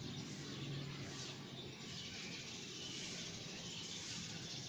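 Outdoor background sound: a steady low hum under faint high-pitched chirping, with the chirping becoming a steady high band about halfway through.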